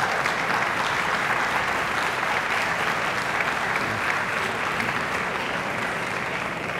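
Large arena crowd applauding, a steady patter of many hands clapping that slowly thins toward the end.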